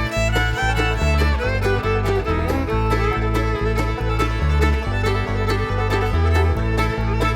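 Instrumental background music with a steady beat and a repeating bass line.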